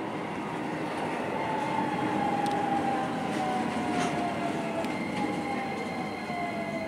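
Keisei local electric train heard from inside the carriage, running and slowing for a station: a motor whine falling steadily in pitch as it brakes, over rolling noise with a few sharp clicks from the rails. A second, higher steady tone joins about five seconds in.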